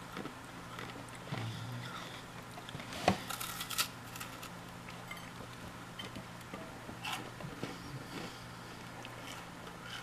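Small eating sounds from a two-month-old Krispy Kreme doughnut being chewed and handled on a ceramic plate: scattered soft clicks and crackles, loudest about three seconds in, over a low steady hum.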